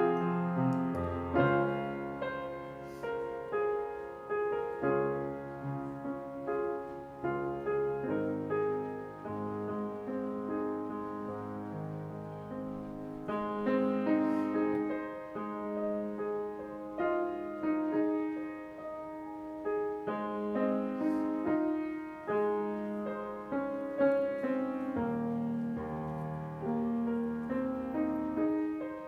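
Solo grand piano playing a worship-song arrangement: held chords under a melody, with the bass notes changing every second or two.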